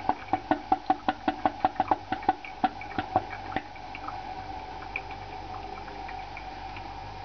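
Electric drip coffee maker brewing: rapid gurgling pops, about five a second, that die away about three and a half seconds in, leaving a steady hiss.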